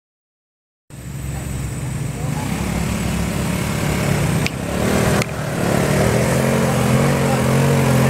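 All-terrain vehicle (quad bike) engine running as it climbs a muddy trail, starting about a second in and growing steadily louder as it approaches, with two short clicks around the middle.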